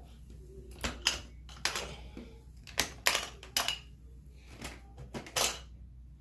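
Handling noises from a Shark vacuum that is switched off: about ten irregular clicks and knocks spread over several seconds, over a low steady hum.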